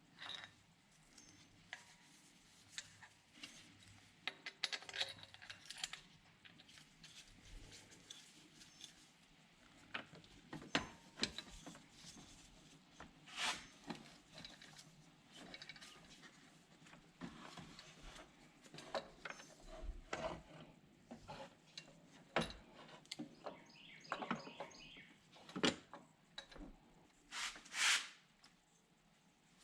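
Scattered metallic clicks, knocks and light rattles of a serpentine belt tensioner and its parts being handled and fitted into place in the engine bay, with a few short scrapes.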